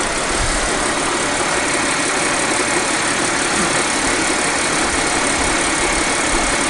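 Audi S5 B8.5's supercharged 3.0-litre V6 idling steadily on fresh oil just after an oil change.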